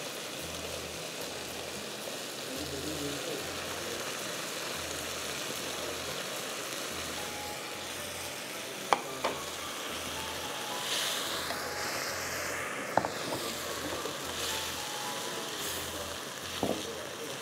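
Carrot and French bean strips sizzling steadily in hot oil and spice masala in a nonstick wok over a gas flame, with a few sharp clicks. Near the end they are stirred with a spatula.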